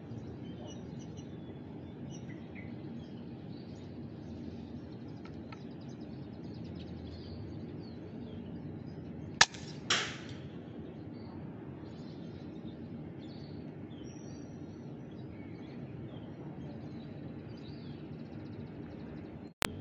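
Faint birds chirping over steady outdoor background noise; about halfway, a sharp crack and, half a second later, a second louder snap with a short tail, like a hunting gun's shot and its hit. A short click near the end.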